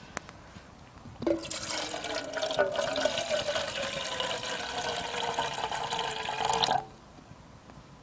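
Water being poured into a soot-blackened metal kettle: a steady splashing pour whose tone slowly falls. It starts about a second in and stops suddenly near the end.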